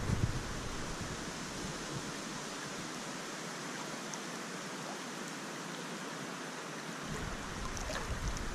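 Wide river flowing steadily, an even rushing of water. A low wind rumble on the microphone comes in near the end.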